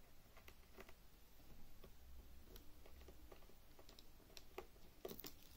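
Near silence with faint, scattered small clicks: a small crosshead screwdriver backing out the last mounting screw of a laptop screen panel. A few clicks come close together near the end.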